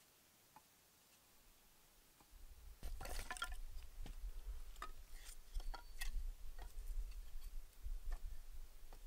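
Near silence for about two seconds. Then, over a low rumble, split kindling sticks clack and knock against each other, a quick cluster of clicks about three seconds in and scattered knocks after, as dry pieces are laid crosswise into a log-cabin fire lay.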